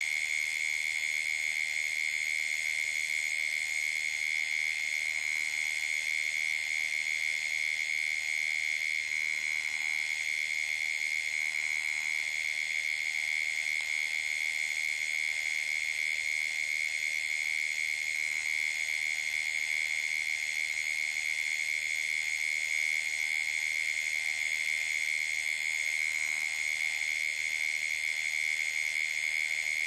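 Night chorus of calling insects and frogs around a waterhole: a dense, steady, high-pitched trilling that holds one main pitch with fainter higher tones above it, unbroken throughout.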